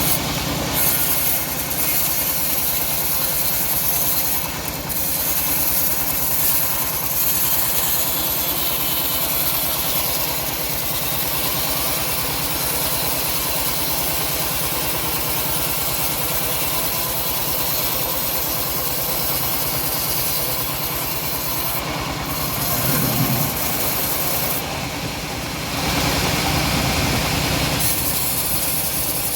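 Engine-driven homemade bandsaw sawmill running steadily while it saws through a teak log. It dips briefly near the end and comes back stronger.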